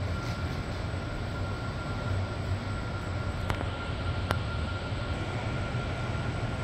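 Steady low hum of a large indoor exhibit hall, with a faint thin whine above it and two sharp clicks a little past the middle.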